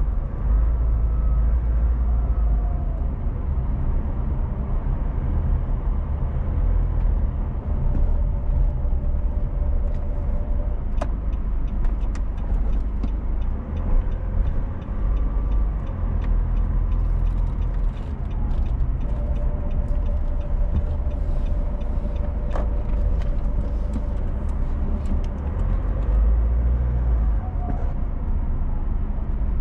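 A car driving along a highway, with a steady low rumble of engine and road noise and scattered faint ticks through the middle.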